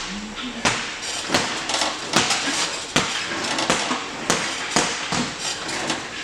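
Gym weights clanking: a string of short, sharp knocks, unevenly spaced about every half second, over steady room noise.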